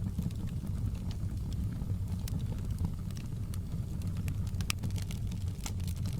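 Wood fire burning in a fireplace: a steady low rumble of flames with scattered sharp crackles and pops, a few louder ones in the second half.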